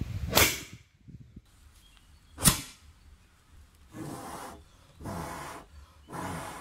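Bamboo cannon giving two sharp pops: one about half a second in with a short tail, and a louder, sharper one about two and a half seconds in. These are followed by three breathy blows, a second apart, that sound hollow through the bamboo tube as air is blown into the touch hole to clear the fumes.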